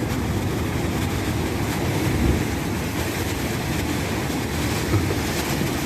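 Wind buffeting the microphone: a steady, choppy low rumble with a fainter hiss above it.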